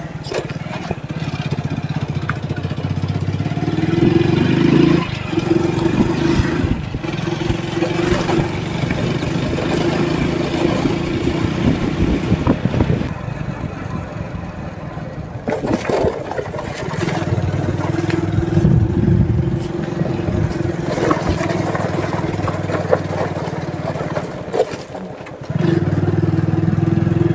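Small commuter motorcycle engine running under way, with road and wind noise. It eases off about halfway through and again shortly before the end, then comes back louder.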